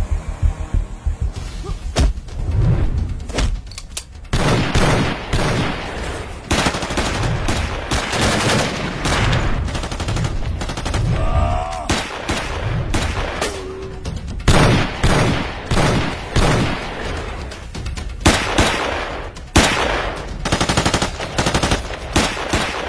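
Staged gunfire: a few shots at first, then dense bursts of rapid shots from about four seconds in, over background music.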